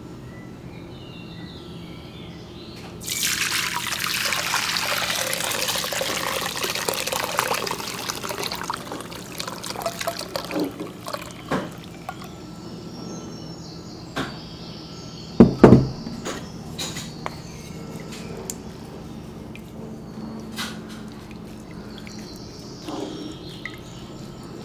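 Hibiscus infusion poured through a wire-mesh strainer into a glass bowl: a splashing pour starts about three seconds in and tapers off to dribbles and drips. Around the middle come two sharp knocks close together, the loudest sounds, then scattered light drips and taps.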